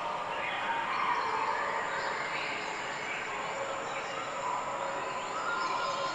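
Several songbirds singing at once, overlapping warbling and whistled phrases over a light outdoor background hiss.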